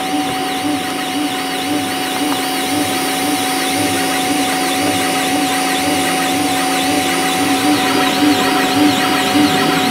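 Creality CR-8 3D printer's stepper motors whining and buzzing as the print head moves fast, printing with the speed turned up to 999%. A steady whine carries a pulse that repeats about twice a second.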